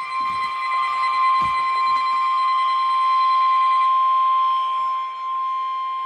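NOAA Weather Radio's 1050 Hz warning alarm tone sounding as one loud, steady tone from a weather radio, announcing a Special Marine Warning that is about to be read.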